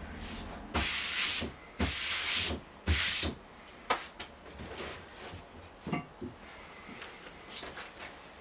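Chipboard strips sliding and scraping across a wooden workbench: three short rubs in the first few seconds, then a few light knocks and handling sounds.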